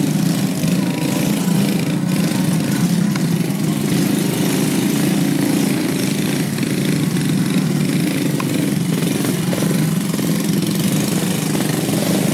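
Engines of two dirt bikes running steadily as the bikes crawl through deep mud.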